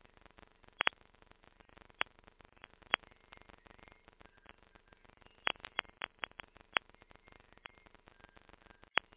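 Grainy, glitchy digital audio from a failed low-quality render: sparse, irregular sharp clicks and pops over a faint crackle, with brief faint tone fragments, the sound muffled with no high end. The clicks come singly and in a quick cluster about halfway through.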